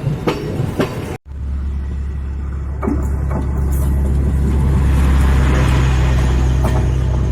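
Train wheels clicking over rail joints for about a second, then after a cut a large engine running with a loud, steady low drone and a hiss that swells and fades in the middle.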